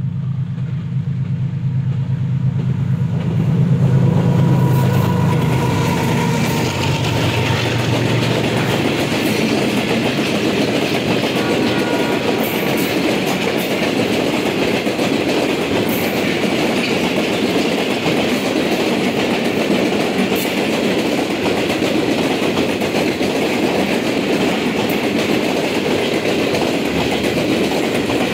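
A diesel-hauled passenger express train passes close by. The locomotive's engine drone is loudest about four seconds in, then the steady rolling rumble and rail clatter of the coaches' wheels takes over, with scattered wheel clicks.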